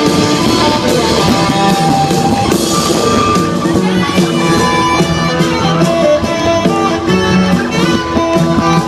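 Live rock band playing an instrumental passage, electric guitar to the fore over drums, with held and repeating notes.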